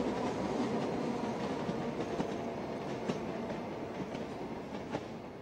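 Passenger train rolling along the track, heard from aboard: a steady rumble with a few sharp clicks from the wheels on the rails. It slowly gets quieter near the end.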